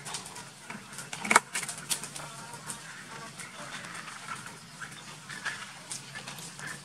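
Light clicks, scratches and knocks from a monkey handling a white plastic bucket, with one sharp knock about a second and a half in.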